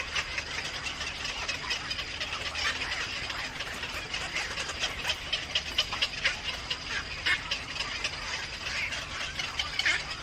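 Small birds chirping in quick, repeated short calls, with a thin steady high-pitched tone beneath them at times.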